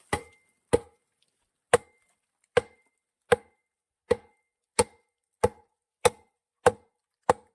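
About twelve heavy, evenly spaced pounding strikes, roughly one every two-thirds of a second, a few with a short metallic ring: stones and earth being rammed firm around a shed post.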